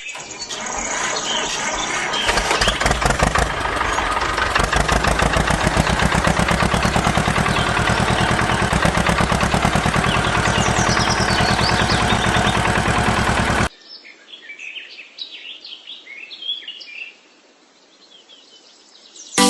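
A small engine starts and runs with a fast, steady rhythm, then cuts off suddenly, leaving birds chirping.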